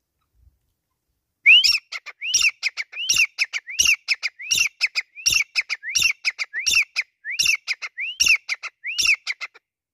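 Grey francolin calling: about eleven phrases, one roughly every three quarters of a second. Each phrase is an arched, rising-and-falling whistled note followed by a quick run of short clipped notes. The calling starts about a second and a half in.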